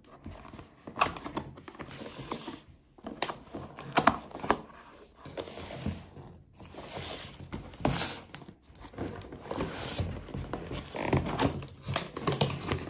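Cardboard box being opened by hand: the flap pulled open and the cardboard rustling and scraping, with scattered short sharp taps and clicks.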